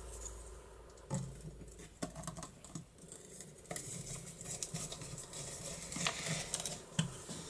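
Small screwdriver turning a screw into the steel cover plate of a mortise bolt lock. A few faint clicks and taps come first, then from about four seconds in a continuous scratchy scraping with small clicks as the screw is driven.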